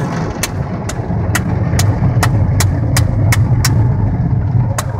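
Automatic tunnel car wash heard from inside the car: a steady low rumble of the wash machinery with cloth and spray scrubbing over the body, and a regular train of sharp clicks about twice a second.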